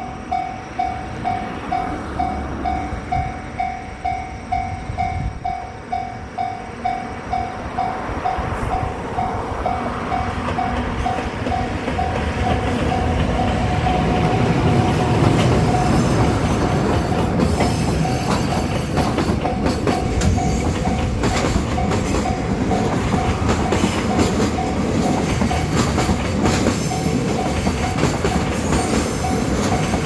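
Freight train of container wagons passing close by, its rumble and wheel clatter building from about eight seconds in and loudest around the middle. A single-pitched bell dings about twice a second throughout, like a railway crossing bell.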